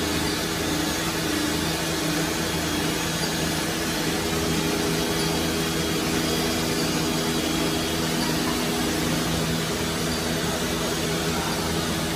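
HOLZTEK R1325-R4 four-spindle CNC nesting router running: a steady machine noise with several held low tones under an even hiss, keeping a constant level.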